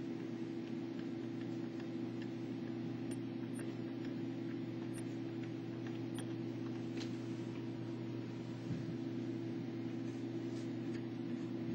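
Steady electrical hum with a few faint scattered ticks.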